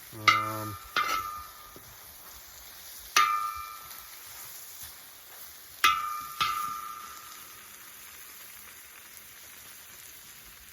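Steak, onions and green peppers sizzling in a discada, a steel disc pan over an outdoor burner, with a metal utensil striking the disc five times in the first seven seconds, each clank ringing. After the last strike only the sizzle continues, quieter.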